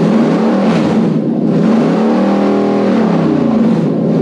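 Toyota 3UZ V8 on an engine stand running on a newly built wiring harness and Link ECU, being revved through its drive-by-wire throttle: the engine speed climbs and falls back about three times.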